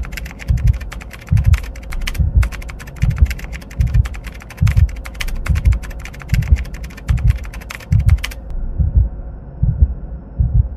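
Keyboard-typing sound effect: a rapid, dense run of key clicks that stops suddenly about eight seconds in, over a low pulsing beat of roughly two thumps a second.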